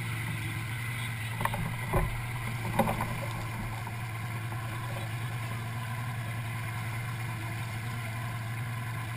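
Boat engine idling steadily with a low hum, with a few brief knocks in the first three seconds.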